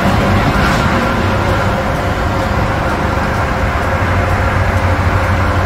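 High-reach demolition excavator working, a loud, steady diesel engine drone with a rushing noise over it as its shear jaw works on the concrete structure.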